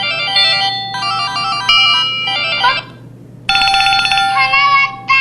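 IM-7200 mobile phone playing its built-in ringtone and sound-effect melodies through its speaker: one electronic melody of quick notes, a short pause, then a second melody that ends in a falling sweep.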